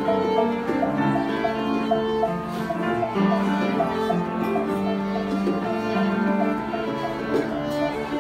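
Live Afro-Cuban jazz trio: violin playing long held lines over piano, with hand-played bongos keeping time and a short note figure repeating steadily.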